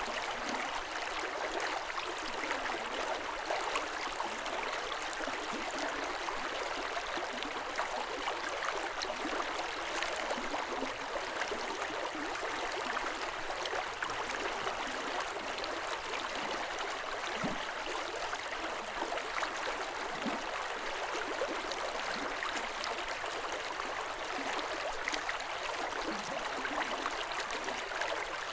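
River water running over rocks, a steady rushing with small gurgles.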